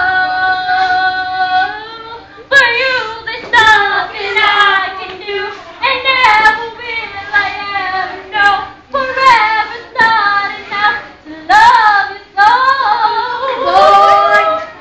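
A girl singing solo without accompaniment, holding one long note at the start and then going on in shorter phrases.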